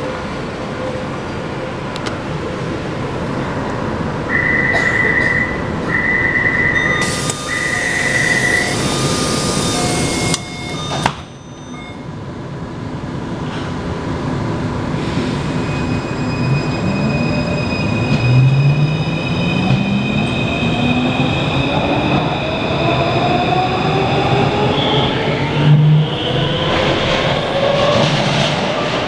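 Door warning chime beeping three times, a loud hiss as the doors close, then a Taipei Metro C341 train pulls away. Its traction inverter whines in several rising tones that climb as the train accelerates, a noise the uploader calls abnormal.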